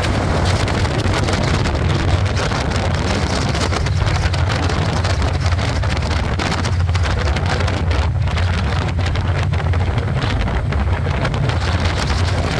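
Motorcycle riding at cruising speed: a steady low engine and road drone under heavy wind buffeting on the microphone.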